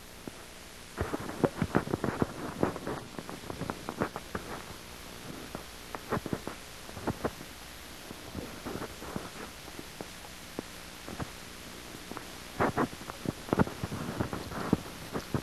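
Irregular clicks and soft knocks, many close together, over a faint steady hum.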